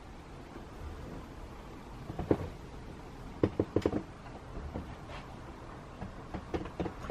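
Scattered light knocks and clicks, with a quick run of four or five about three and a half seconds in, over a steady low background hum: handling and footfall noises as someone moves through a boat's cabin.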